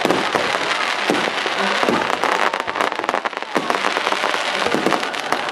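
Aerial fireworks going off in quick succession: a dense, unbroken crackle of many small sharp pops from crackling shells bursting overhead.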